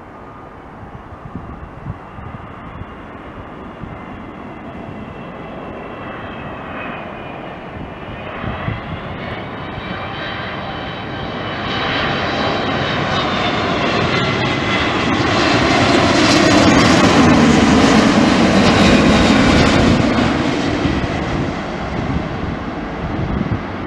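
Boeing 777-200ER on final approach, its twin turbofan engines growing steadily louder: a roar with several high whining tones that bend in pitch. It is loudest about two-thirds of the way through as the airliner passes low overhead, then eases off a little.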